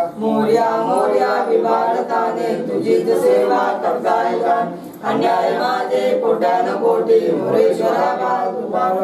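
A group of voices singing a Ganpati aarti together, unaccompanied, line after line, with a short break for breath about five seconds in.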